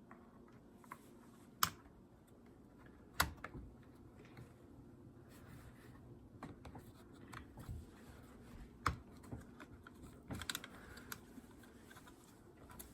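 Scattered light plastic clicks and taps as a new air filter is handled and fitted into the air filter housing of an Echo CS-310 chainsaw, with a few sharper clicks as it seats.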